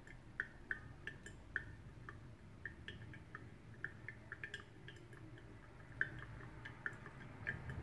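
Brewed coffee dripping from a paper-filter pour-over dripper into a glass server: faint, irregular plinks, about two or three a second.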